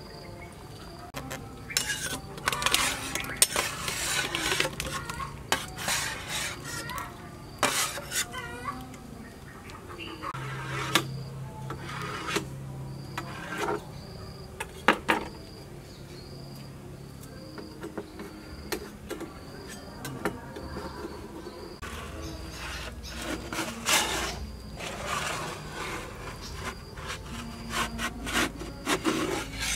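Metal knife scraping and clinking against metal pots while cutting set jelly into cubes: irregular scrapes and clatters of metal on metal, in several bursts.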